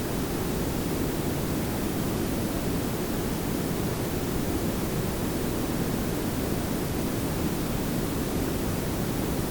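Layered pink and brown noise: a steady, even hiss with a heavy low rumble, unchanging throughout.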